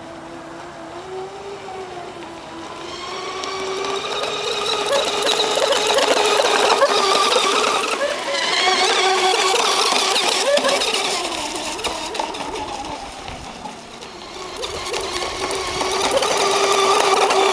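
Mono 1 RC racing boat's Feigao brushless electric motor and Graupner K33 three-blade propeller running at speed: a steady whine with several overtones that grows loud as the boat comes close, fades about two thirds of the way through, and swells again near the end.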